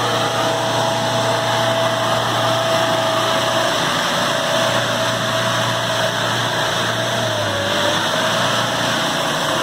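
Off-road SUV engine running steadily under load as the 4x4 works its way out of a spot where it was stuck, the engine note dipping briefly near the end.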